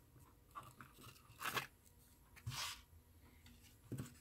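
A few faint, short scrapes and rubs as an LED clock display board is pressed by hand into a clear acrylic enclosure, with a small click near the end.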